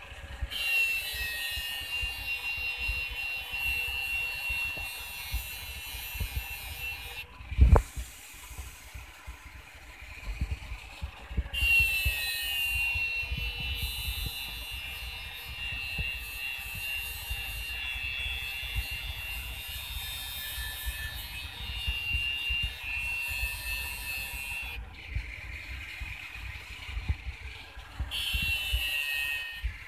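Electric angle grinder grinding the steel blade of a sickle (arit), a shrill grinding sound in three long stretches with short quieter breaks between, to sharpen and thin a blunt, thick blade. A single loud knock comes just after the first break begins.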